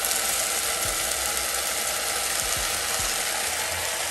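Cooked black beans and their liquid poured into a hot pan of frying vegetables, sizzling steadily.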